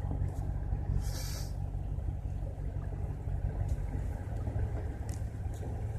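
A vehicle engine running with a steady low hum whose pitch drops slightly about four seconds in, and a short hiss about a second in.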